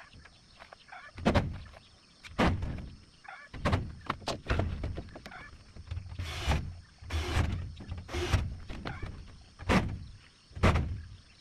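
Repeated dull knocks on timber, about one a second at an uneven pace, as wooden posts are knocked into place in a wooden frame.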